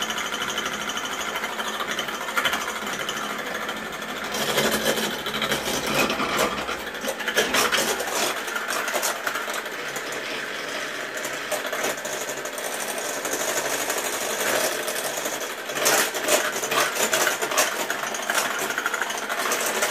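Electric hand mixer running steadily, its whisk beaters beating eggs and sugar in a metal saucepan, with irregular clicks and clatter of the beaters in the pan.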